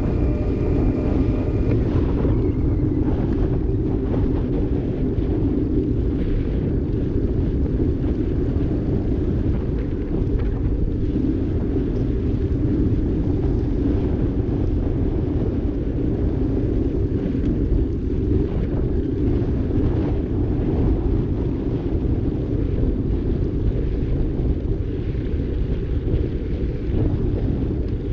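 Wind rushing over the microphone of a camera on a moving bicycle, a loud steady low rumble mixed with tyre noise on the asphalt path. A thin steady tone sounds over it for the first couple of seconds.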